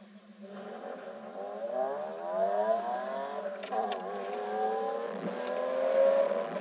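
Cars accelerating hard away down a race-track straight: the engine note climbs in pitch, falls about four seconds in and climbs again, over a steady low idle hum.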